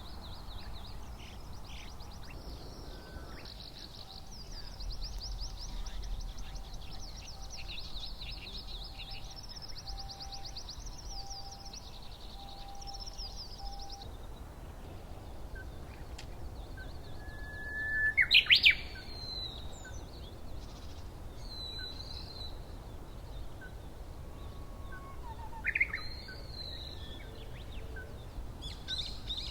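Wild birds in the early morning: a long, fast, high chattering song for about the first fourteen seconds, then scattered single calls, with one loud rising call about two-thirds of the way through and a shorter one later, over a low steady background rumble.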